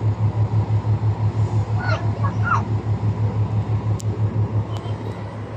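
Ship's diesel engine running with a steady low throb, about six beats a second. A few brief chirps come about two seconds in.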